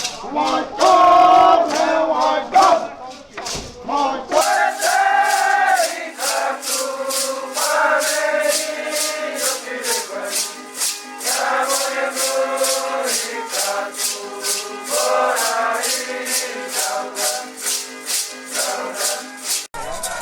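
Indigenous group chant: many voices singing long held notes together over maracá rattles shaken in a steady beat, about three strokes a second. About four seconds in, the sound cuts from one recording to another.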